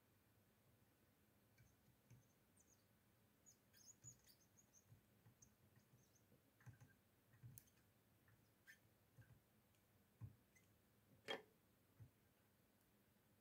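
Faint, scattered clicks and light taps of small tools and parts being handled, with one sharper click about eleven seconds in.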